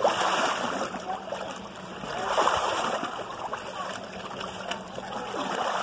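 Muddy liquid sloshing and splashing in a stone tannery vat as a worker treads hides in it, surging loudest near the start and again about two and a half seconds in.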